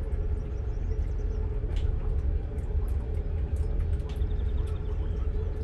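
Low, steady rumble of a Sea Ray Sundancer's MerCruiser 7.4 L V8 inboard engine running at idle, with birds chirping faintly.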